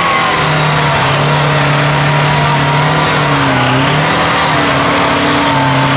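Off-road vehicle engine running at high revs under load, its pitch held fairly steady with small dips and rises.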